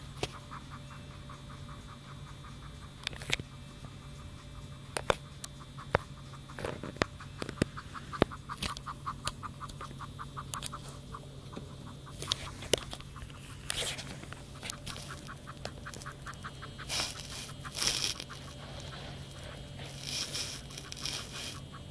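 Kitten panting in quick, even breaths, gasping for air after playing to exhaustion. A few sharp clicks or knocks come through along the way, and there are two louder, breathier stretches near the end.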